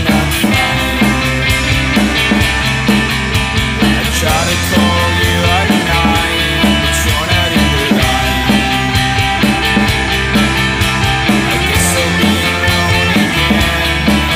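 Indie rock song played by a full band, with a steady beat and a few cymbal crashes.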